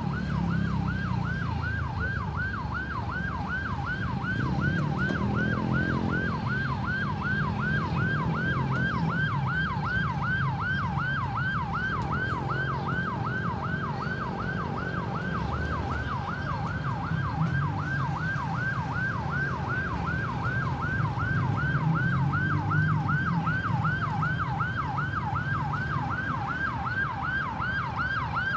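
Ambulance siren on a fast yelp, its pitch rising and falling about three times a second without a break, over the low rumble of vehicle engines. An engine revs up about five seconds in and again about twelve seconds in.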